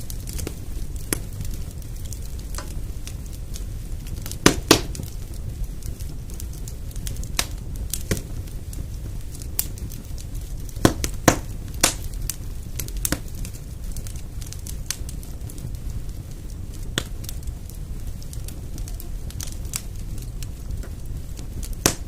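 Wood fire burning in a fireplace: a steady low rumble of the flames with irregular sharp crackles and pops, a few louder snaps in pairs now and then.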